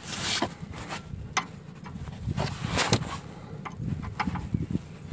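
A 13 mm wrench turning the steering tie rod of a Renault Scenic 2 to adjust the front wheel's toe: irregular metallic clicks and short scrapes as the wrench works and is reset on the rod.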